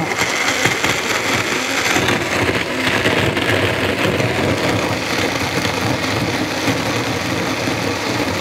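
Magic Bullet personal blender switching on and running steadily, its blades churning a thick mix of banana, dates and peanut butter in almond milk.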